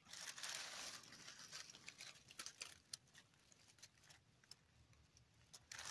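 Near silence, with faint rustling and scattered light ticks over the first few seconds.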